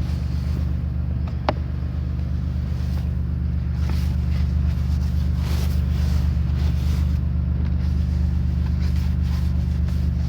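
Car engine idling steadily with a low hum, left running to warm up in the cold. Intermittent rustling noise is heard over it from a few seconds in.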